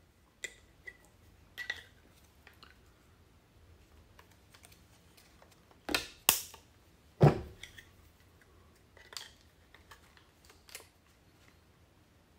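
Plastic leg extensions being pushed and snapped onto a DJI Mavic 2 Pro drone's landing legs: scattered small plastic clicks and taps, with three louder snaps about halfway through.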